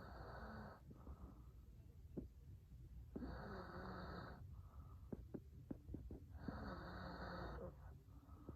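A man snoring in his sleep: three snores about three seconds apart, each followed by a softer breath, with a few faint clicks between them.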